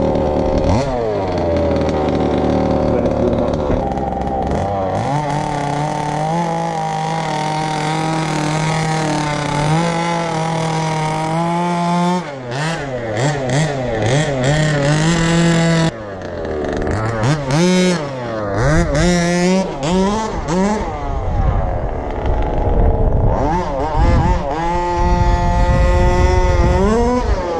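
HPI Baja 1/5-scale RC buggy's small two-stroke petrol engine running, held steady for a while and then revved up and down over and over, with a sudden break partway through and rising revs near the end.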